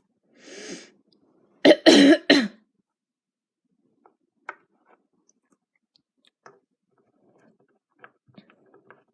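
A woman coughing while sick with a cold: a short breath, then three harsh coughs in quick succession about two seconds in, followed by a few faint clicks.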